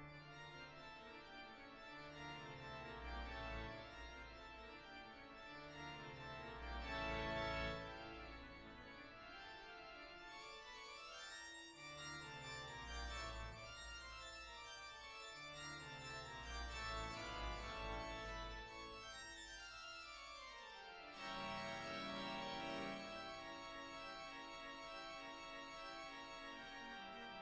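Background music of sustained organ-like chords that change every few seconds, with sweeping pitch glides around the middle.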